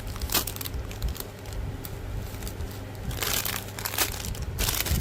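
Plastic packaging crinkling and rustling as squishy toys are handled, with a few sharp crackles and two longer rustles near the end.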